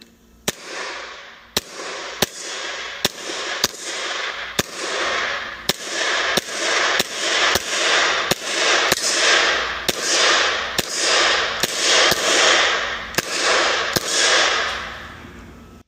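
Airsoft Glock pistol with a laser trainer firing a long string of single shots: about twenty sharp cracks, roughly one every half second, each followed by a hissing rush that swells and fades.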